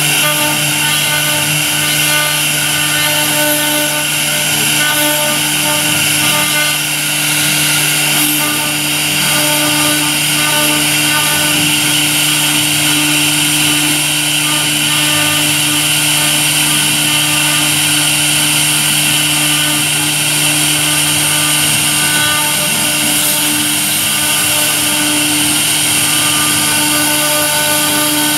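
CNC router spindle running with a V-bit, cutting a carved outline into a wooden board: a steady machine whine with the hiss of the cut.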